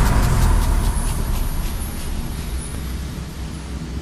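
Cinematic logo sound effect: a deep, steady rumble that slowly fades, with faint crackles in the first two seconds.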